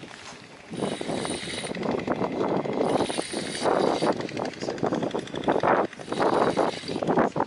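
Spinning reel whirring in uneven spurts as it is cranked to play a hooked fish, starting about a second in.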